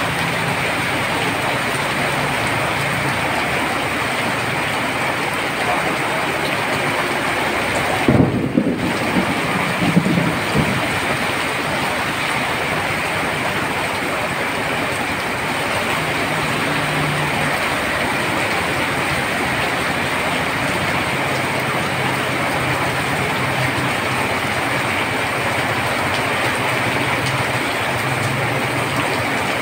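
Heavy rain falling steadily on a road, a continuous loud hiss, with motorcycle engines passing by on the wet road. About eight to ten seconds in there are a few louder low thumps.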